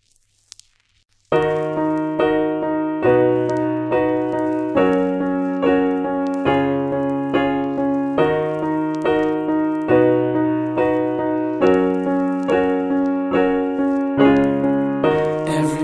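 Music: a song's keyboard intro. Piano-like chords are struck again and again over a low bass note that changes about every second and three-quarters. It starts about a second in, and a fuller, brighter sound joins near the end.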